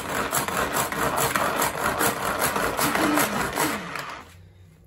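Hand-operated mini food chopper whirring and clattering as its blades spin through onion and garlic in a rapid, even run of strokes that stops about four seconds in.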